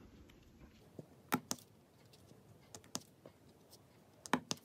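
Light clicks of square diamond-painting drills being set and pushed into place with tweezers: scattered single clicks and quick pairs, with the loudest little cluster near the end.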